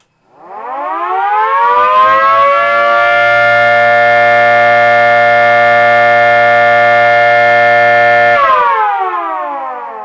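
Homemade 3D-printed miniature 2T22 tornado siren, its brushed motor spinning the rotor. The wail rises in pitch for about three seconds, holds a steady, loud tone, then drops in pitch as the power cuts about eight seconds in. The short wind-down is put down by the owner to the brushed motor's brushes dragging.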